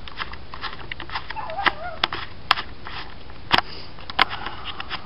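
Sycamore wood fire crackling, with irregular sharp pops, a few of them loud.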